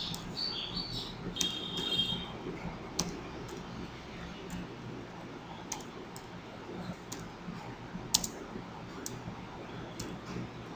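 Computer keyboard keystrokes and mouse clicks, sparse and irregular, with gaps of a second or more between them.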